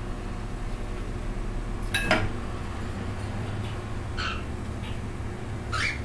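Baby cockatiels giving a few short, scratchy calls, about four seconds in and again near the end, over a steady low room hum, with a sharp click with a brief ring about two seconds in, from the glass bathing dish.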